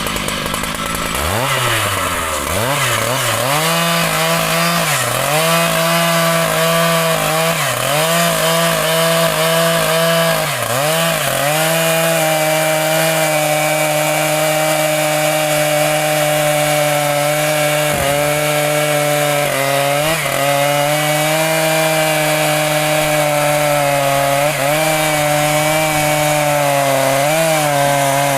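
Chainsaw cutting mahogany wood. The engine revs up and dips repeatedly for the first ten seconds or so as the chain bites, then holds a steady high pitch under load through the cut, with a few brief dips.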